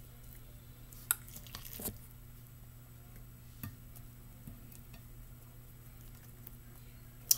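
Metal spoon scooping cooked rice and dropping it onto a nori sheet: a few soft scrapes and short clicks, the sharpest click near the end, over a low steady hum.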